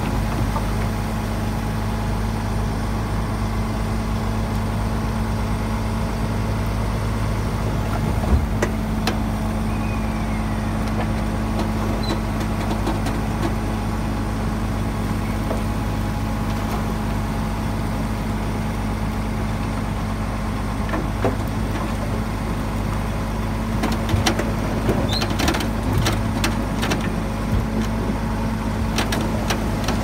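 Diesel engine of heavy earthmoving machinery running steadily, with a few sharp clicks and knocks in the last several seconds.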